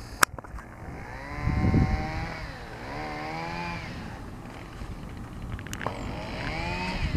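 A small engine revs three times, each rev rising in pitch, holding, then falling away. There is a sharp click near the start.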